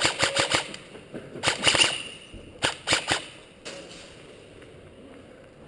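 Airsoft electric gun (AEP) firing rapid strings of shots. A string of about five comes first, another of several follows about a second and a half in, three more come near the three-second mark, and then a single shot.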